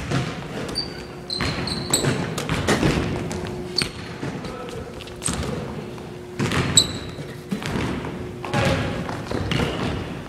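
Basketball bouncing on a hardwood gym floor, with irregular thuds and several short, high sneaker squeaks as players sprint and cut on the court.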